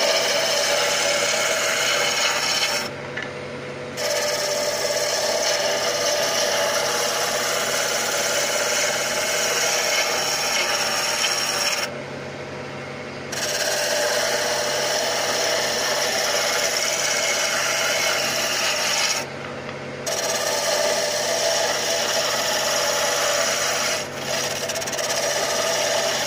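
A spalted birch blank spinning on a wood lathe being cut down with a turning tool: a continuous rough shaving noise as the tool peels off chips, over the lathe motor's steady low hum. The cutting noise drops away briefly four times when the tool lifts off the wood.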